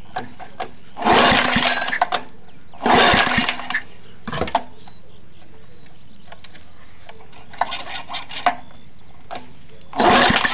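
Tecumseh lawn mower engine being pull-started: three hard yanks on the recoil starter, each a burst of about a second, plus a short tug and a weaker pull, without the engine catching.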